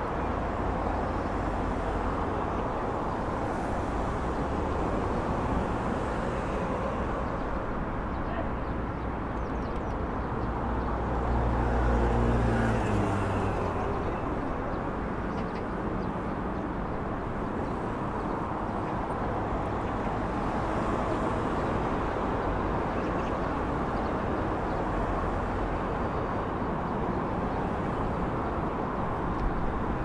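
Steady road-traffic noise from the Gwangjin Bridge roadway. One vehicle passes louder about twelve seconds in, its engine tone dropping slightly as it goes by.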